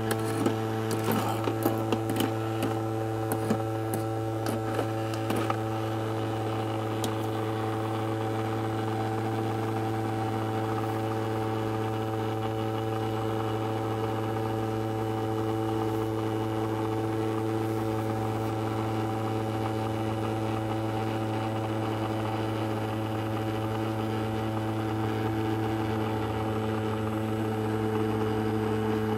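Ultrasonic cleaner running with a steady buzzing hum, its tank of water holding coins. Over the first several seconds, sharp metallic clicks as a metal grabber taps and moves the coins in the tank.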